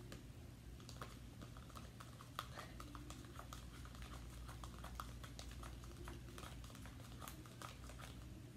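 Faint, irregular clicks and ticks of a spoon stirring sticky soap slime in a small plastic cup, over a steady low hum.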